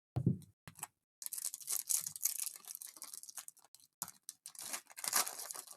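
Plastic trading-card packaging crinkling and tearing, with small clicks and rustles as cards and wrappers are handled.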